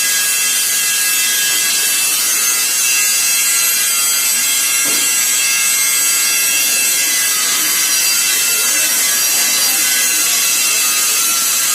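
TIG welding arc on a carbon steel pipe, a steady hiss with faint high whining tones running through it.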